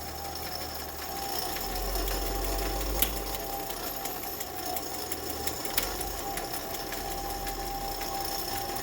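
Atlas milling machine's repaired power feed running, a steady motor-and-gear whir with two light clicks. The feed is working again after its repair.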